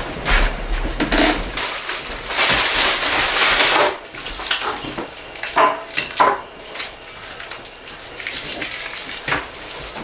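Handling noises from setting candles into a spruce-bough centerpiece: a long rustle about two seconds in, then a few sharp knocks as things are set down.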